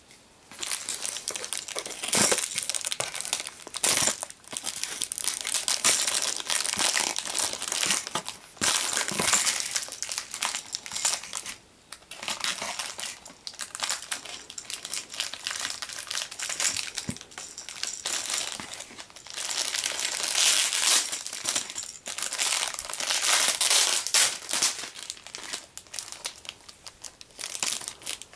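Clear plastic packaging bags crinkling and rustling on and off as small toy parts are handled and taken out of them.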